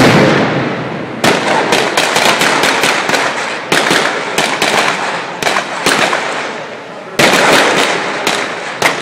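Simulated gunfire in a police drill: rapid volleys of shots, several a second, each burst trailing off in long echoes. The firing thins out around six seconds in and resumes with a loud volley about seven seconds in.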